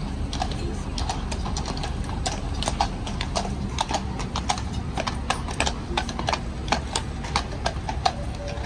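Shod hooves of a Life Guards cavalry horse clip-clopping at a walk on stone paving: a run of sharp, uneven strikes, a few each second.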